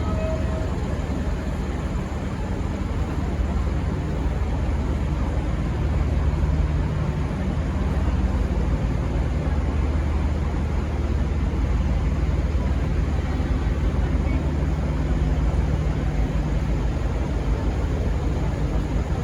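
V/Line N class diesel-electric locomotive's EMD 12-cylinder two-stroke engine running with a steady low drone, getting a little louder about four to six seconds in.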